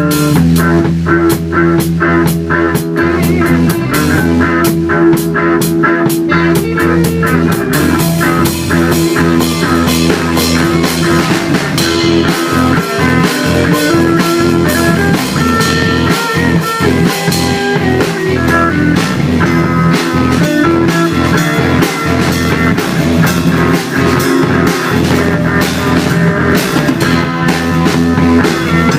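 Rock band playing, with guitar and drum kit keeping a steady beat.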